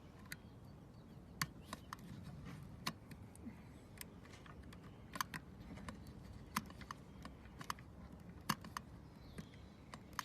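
Light, irregular clicks and taps of small deadbolt lock parts being handled and fitted together by hand, over a low room hum.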